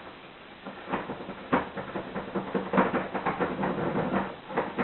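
A universal rake key being worked quickly in and out of a euro cylinder door lock, the key and pins clicking and rattling in irregular bursts; the lock has not yet turned.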